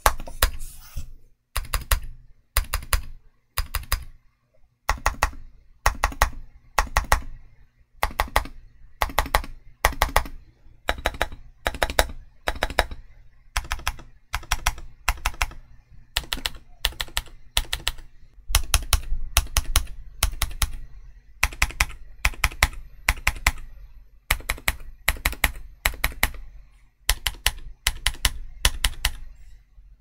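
Typing on a stock KeebMonkey WK870 aluminium TKL keyboard with Gazzew U4Tx tactile switches, Cherry-profile PBT keycaps and a PC plate. The keystrokes come in quick bursts of a second or two, with short pauses between them.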